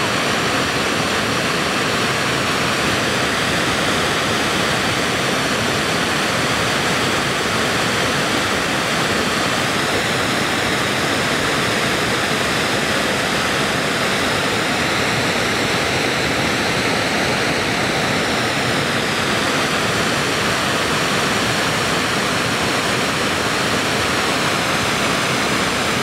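Small river waterfall: water pours over low, stepped rock ledges and churns into white foam below, a steady, unbroken rush.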